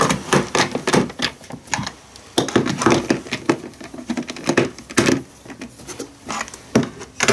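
Hand screwdriver tightening screws into a battery chainsaw's plastic housing: irregular clicks, scrapes and knocks of the driver tip and plastic case, bunched most closely a little past halfway.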